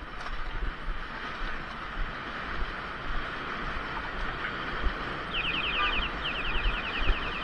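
Wind noise on the camera microphone and rolling rumble from a kick scooter ride, with low bumps. About two thirds in, a rapid high chirping starts, about ten chirps a second, with a short break, and keeps going.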